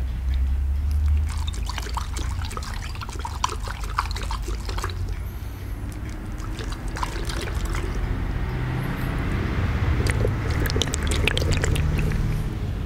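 Soft rubber squishy ball squeezed and kneaded in the hands close to the microphone, giving wet, squelchy crackles, heaviest in the first few seconds and again near the end.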